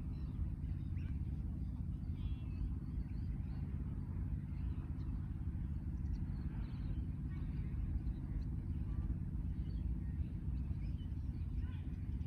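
Small engine of a ride-on mower running steadily, a low even drone, with a few faint high chirps over it.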